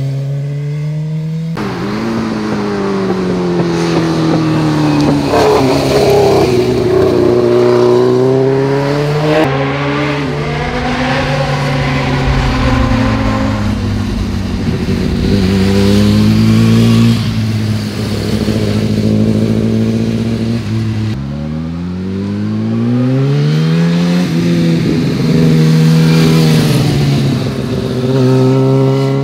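Several motorcycles, sport bikes and a touring bike, passing one after another, their engines revving up and dropping in pitch again as they ride through the bend. The engine note changes abruptly a few times between passes.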